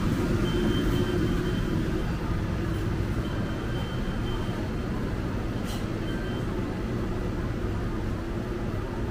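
Steady low rumble of background noise with no single clear source, and a faint click about six seconds in.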